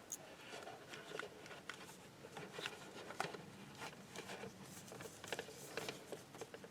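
Faint, irregular clicks and rustles of a flip phone being handled and its keys pressed, with no ringtone playing.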